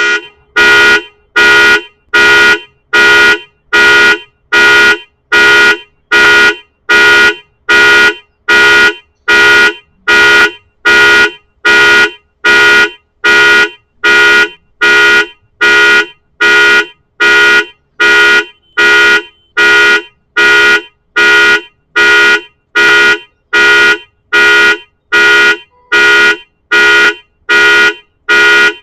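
Car anti-theft alarm going off: loud, steady-pitched horn blasts, each about half a second long, repeating a little more than once a second without a break.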